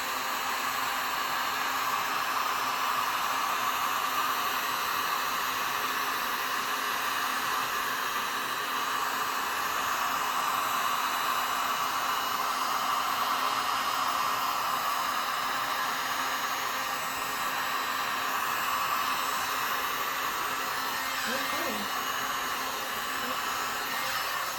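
Handheld hot-air blower running steadily, pushing white resin across wet clear resin to form wave lacing.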